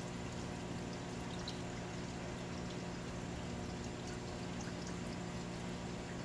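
Coolant from a coolant rig running steadily onto a torch-heated stainless steel shaft to cool it during heat straightening, over a steady low machine hum.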